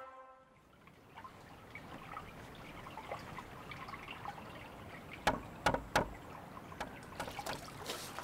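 Faint water trickling and sloshing, with a few sharper splashes about five to six seconds in.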